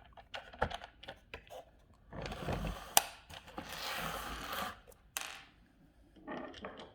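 Hard plastic parts of an RC car clicking and clattering as 3D-printed wheel adapters and wheels are handled and fitted, with two stretches of rubbing and a sharp click about three seconds in.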